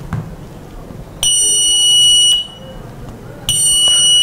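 Piezo buzzer of a homemade glass-break vibration alarm sounding two steady high-pitched beeps, each about a second long with a second's gap, after a faint click near the start. The beeps mean the piezo sensor has picked up a vibration and the timer IC has triggered the relay that drives the alert buzzer.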